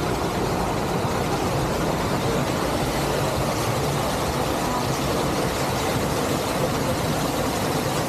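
Steady rush of a small waterfall pouring off a rock face and splashing into the river close by.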